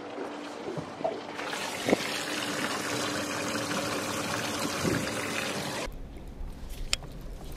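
Water pouring and bubbling into a boat's livewell holding a freshly caught bream, a steady rushing hiss that begins about one and a half seconds in and cuts off suddenly about six seconds in.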